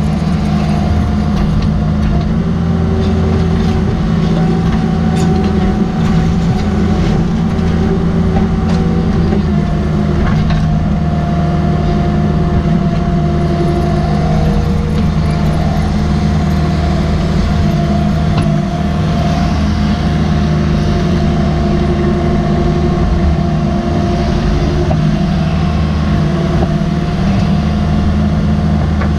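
Cat 305.5E mini excavator's diesel engine running steadily under digging load, with a higher steady whine over it, heard from the operator's cab.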